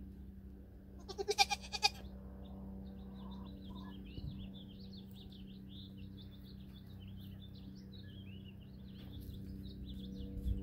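A Nigerian Dwarf goat gives one short, quavering bleat about a second in. Birds chirp steadily after it.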